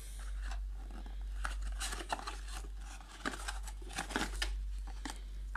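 Cardboard packaging being handled: a black inner box slid and pulled out of a white outer box, giving irregular scrapes, taps and rustles of cardboard. A steady low hum runs underneath.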